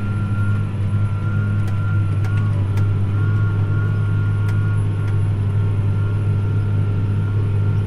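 Tractor engine running steadily under load while pulling a field cultivator, a constant low drone with a faint high whine over it.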